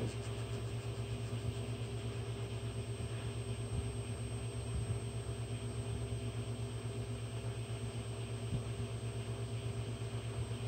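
Steady low electrical hum from a home-built delta 3D printer standing by between prints, with a few faint clicks.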